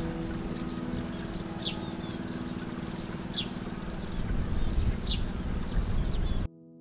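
A bird repeating a short, high, falling call about every one and a half to two seconds, with fainter chirps in between, over a low outdoor rumble. The sound cuts off abruptly near the end.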